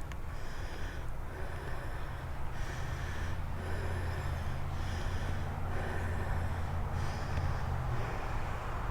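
Low rumble of a vehicle on a nearby road, swelling from about three and a half seconds in and easing off near the end, under a fainter higher pulsing sound that repeats about once a second.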